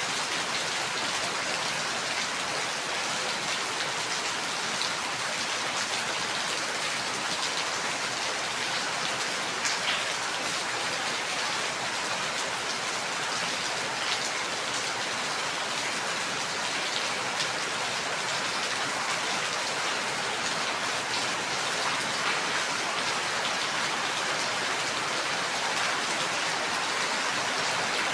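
Steady rain falling and pattering on a surface, an even dense hiss with scattered sharper drop ticks.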